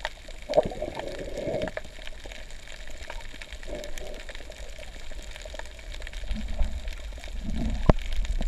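Muffled underwater sound from a camera held underwater: a steady low rumble of moving water with scattered faint clicks and a few short bubbly gurgles.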